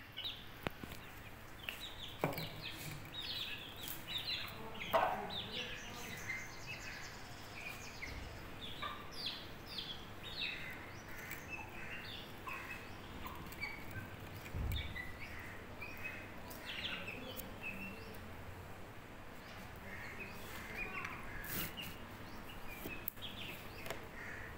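Young chickens peeping in short, high chirps again and again while they and a hen peck rice off a concrete floor, with scattered sharp taps of beaks on the concrete and one louder call about five seconds in.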